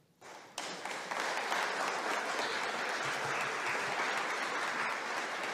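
Audience applauding at the end of a lecture. It starts about a quarter second in, quickly swells and then holds as steady, dense clapping.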